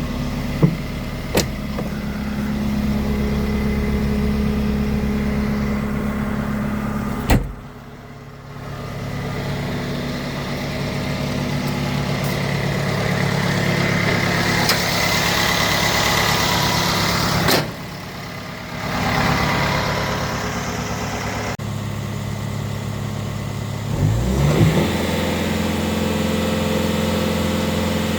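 Bobcat T66 track loader's diesel engine running at idle, with a brief rise in engine speed about three-quarters of the way through.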